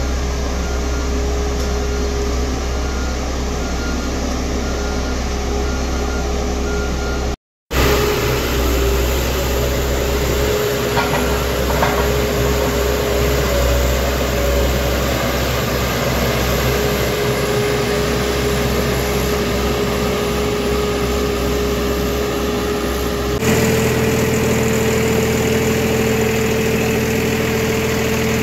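Diesel engines of heavy road-building machines, a single-drum roller compactor and a road grader, running steadily at a constant pitch. The sound drops out for a moment about seven seconds in and shifts abruptly to a different engine note near the end.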